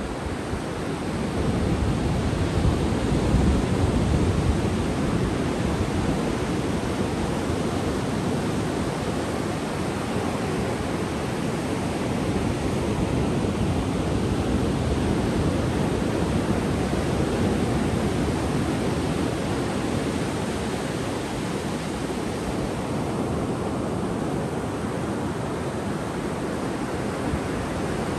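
Ocean surf breaking on a sandy beach: a continuous low rush of waves that swells about two seconds in and then holds steady.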